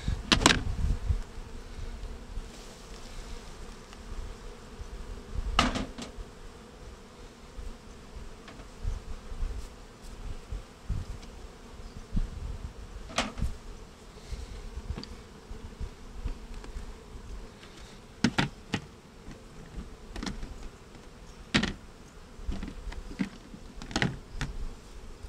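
Honeybees buzzing around an opened hive, a steady hum. Several sharp knocks are scattered through it as wooden frames are handled against the hive box.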